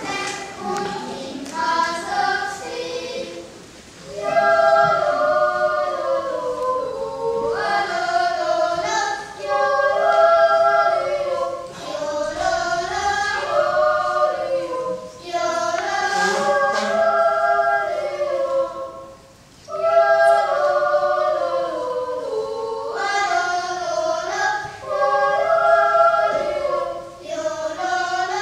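A youth choir of young voices singing a cappella in several-part harmony, a Swiss yodel choir song, with held notes and short breaths between phrases, about four seconds in and again past the middle.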